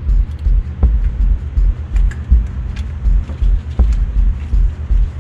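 A low, uneven rumble with a few light clicks and taps of parts being handled on the engine's intake manifold.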